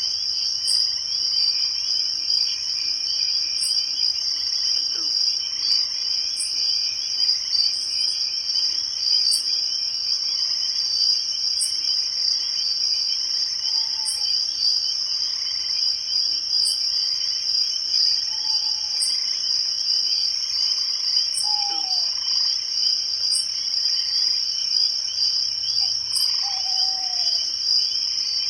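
Night-time chorus of crickets and other insects: a dense, steady, high trill. Over it, a thin high chirp repeats about every two and a half seconds, and a few short falling calls come in the second half.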